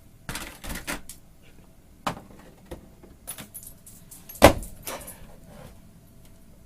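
An irregular series of sharp knocks and rattling clatters, the loudest about four and a half seconds in.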